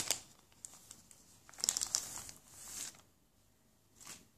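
Thin clear plastic wrapping crinkling as it is pulled off a new smartphone, in crackly bursts at the start and again around two seconds in, then a short rustle near the end.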